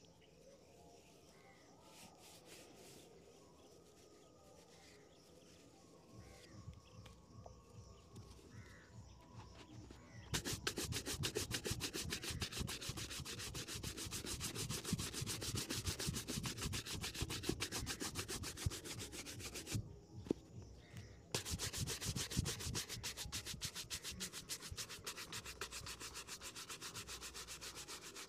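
A bristle shoe-shine brush scrubbed rapidly back and forth over a shoe, a dry fast scratching. It starts about a third of the way in and stops briefly about two-thirds through before going on.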